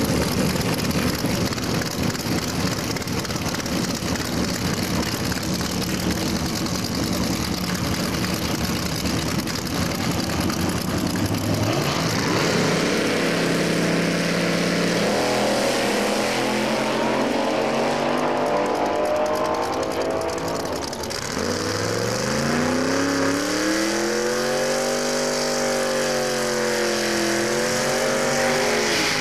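Drag-racing cars' engines on open headers running loudly, a dense noisy sound for the first dozen seconds. Then an engine revs up in steps and, from a little past the middle, in long rising and falling sweeps as a car does a smoky burnout.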